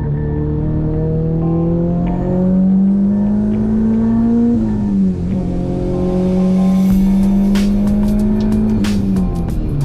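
Turbocharged 8th-generation Honda Civic Si engine pulling under load, its pitch climbing steadily and then dropping sharply at a gear change about halfway through, climbing again and dropping at another shift near the end.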